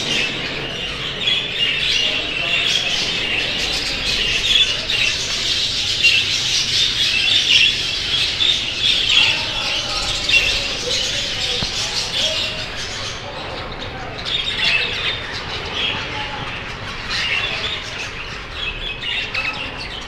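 A flock of exhibition budgerigars chattering all at once, many birds overlapping. The chatter is dense for the first dozen seconds and then comes in patchier bursts.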